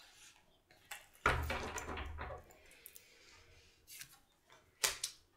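Tarot cards handled over a wooden table: a rustling knock as the deck is handled about a second in, then sharp taps near the end as a card is set down on the wood.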